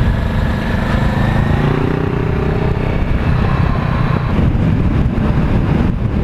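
Wind buffeting the helmet microphone on a moving Honda CBR500R, with the bike's parallel-twin engine running underneath; the engine note rises between about one and three seconds in.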